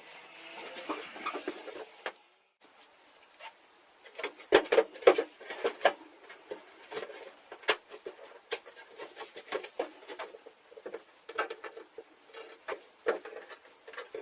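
Irregular scraping and knocking strokes of hand work on wood, with a short break about two seconds in.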